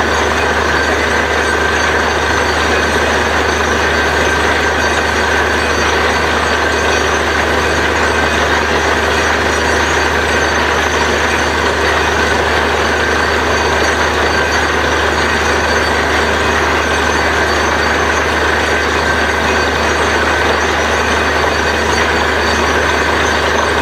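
Truck-mounted borewell drilling rig running steadily while drilling, slurry welling up at the bore: a heavy, unchanging engine drone with a broad hiss and a thin constant high whine over it.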